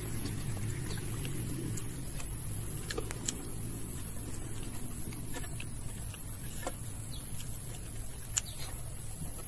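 Eating sounds: chewing, with small clicks and smacks as fingers pick rice and pork off a metal plate. Under them is a steady low outdoor rumble with occasional short bird chirps.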